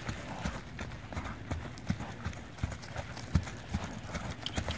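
Hoofbeats of a horse trotting on grass, dull thumps about three times a second.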